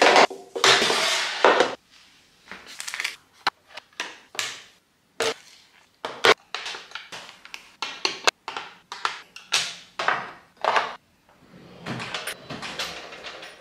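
Clear acrylic organizer trays being set into a drawer and hair tools dropped into them: a long scrape as a tray slides into place, then a string of sharp clicks, taps and short scrapes of plastic and metal on acrylic. Near the end the drawer slides shut.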